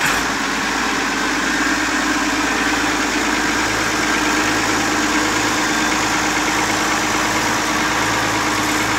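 Allis-Chalmers 180 tractor engine idling steadily.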